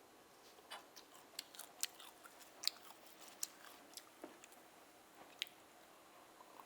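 Faint, close-miked chewing: irregular wet mouth clicks and smacks, most of them in the first five seconds.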